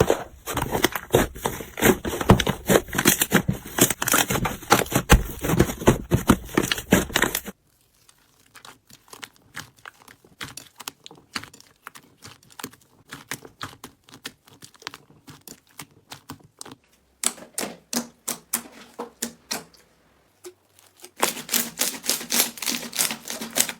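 Slime being squeezed and worked by hand, giving a rapid crackle of small clicks and pops. After an abrupt cut about a third of the way in the clicks turn sparse and quiet, then grow dense and loud again in two stretches near the end.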